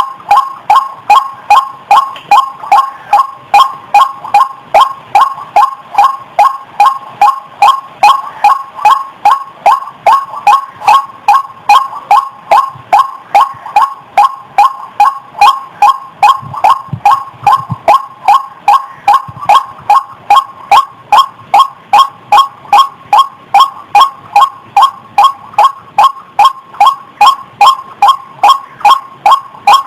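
White-breasted waterhen (ruak-ruak) calls from a female, a lure recording for trapping the bird: short calls repeated steadily, about three a second, without a break.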